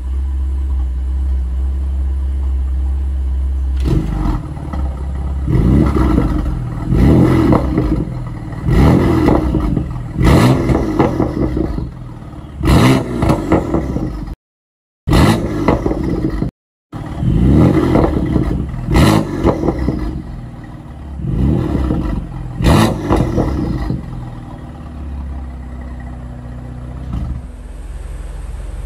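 2015 BMW M4's twin-turbo inline-six idling, then blipped again and again in short revs with sharp cracks and pops on the overrun from its burble tune, settling back to a steady idle near the end.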